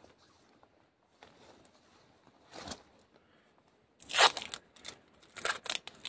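Adhesive tape being pulled off its roll in several short ripping pulls, the loudest a little after four seconds in.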